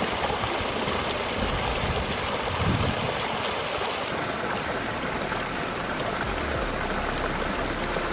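Water from a pondless waterfall pouring and splashing in a steady rush.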